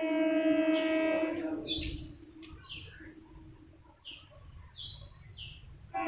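Train horn sounding one long steady note that fades away after about two seconds. Then birds give about five short falling chirps. The horn sounds again right at the end.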